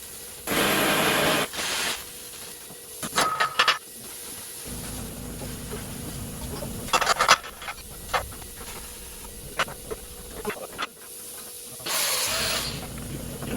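Hissing bursts of about a second each, one near the start and one near the end, with scattered clicks and knocks between them and a low hum through the middle.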